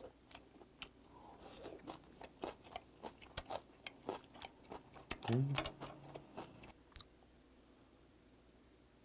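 Close-up chewing of raw flounder sashimi: wet mouth clicks and smacks for about seven seconds, with a short hummed "mm" about five seconds in.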